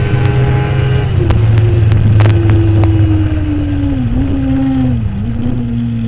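2008 Kawasaki ZX-10R's inline-four engine heard from the rider's seat, running flat out and then falling steadily in pitch as the bike shuts off and brakes hard from top speed. Two brief dips in pitch near four and five seconds in are typical of downshifts. A few sharp clicks come in the second and third seconds.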